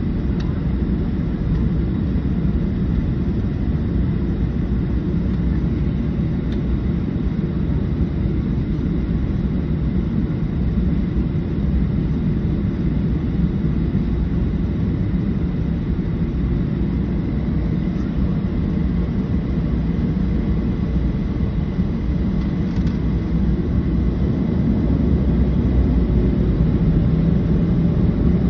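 Steady rumble of a Boeing 737-700's CFM56 jet engines and airflow heard inside the cabin, with a faint steady whine above it, growing a little louder near the end.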